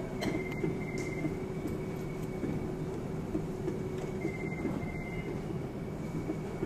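Steady low hum and rumble of running machinery, with a faint high, rapidly pulsing tone that comes twice, near the start and again about four seconds in, and a few light clicks.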